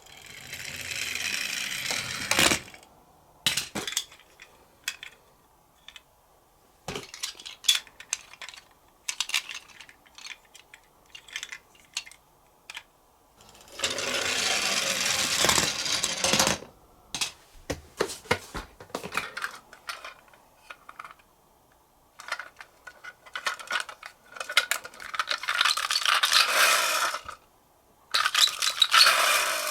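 Die-cast toy police car rolling down a slope, rattling and clattering in runs of a few seconds: one near the start, one in the middle and two near the end. Scattered sharp clicks and clacks come between the runs.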